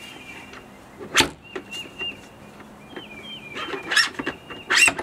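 Sharp knocks and clatters of router and table parts being handled, loudest about a second in and again near the end, over faint high chirping.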